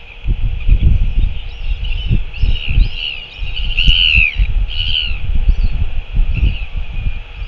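Wind buffeting the microphone in gusts, with a small bird singing a string of short arched chirps, the loudest about four seconds in.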